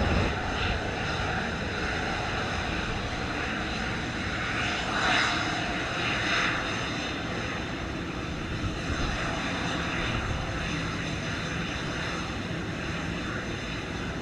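Boeing 737's twin jet engines running at low power as the airliner taxis slowly onto the runway: a steady high whine over a rush of air.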